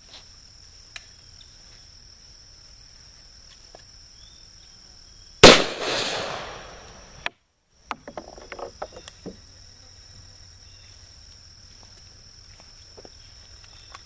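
A single shot from an SKS rifle (7.62×39 mm) fired at a can of compressed air duster, a sharp crack followed by a fading rush of sound lasting under two seconds. A steady high chirring of insects runs underneath.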